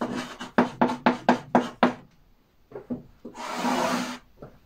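Writing on a blackboard: a quick run of short, scratchy strokes, then a pause and one longer stroke about three and a half seconds in.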